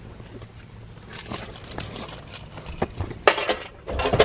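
Rummaging about in a car's cabin: rustling and scattered clicks, with louder knocks and clattering about three seconds in and near the end, over a low steady hum.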